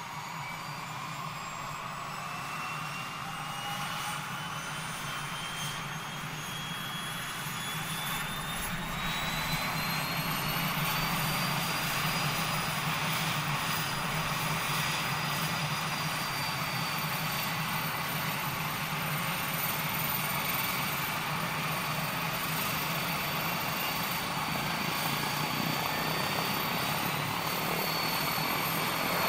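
Beechcraft King Air's PT6A turboprop engine starting, heard from outside: the turbine's high whine rises steadily for about ten seconds as it spools up, then holds at a steady idle pitch over a low propeller drone.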